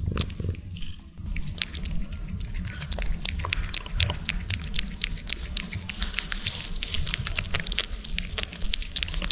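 A cat licking and rubbing against a microphone right at its head: dense wet clicks and rasping rustles that start about a second in, over a low steady rumble.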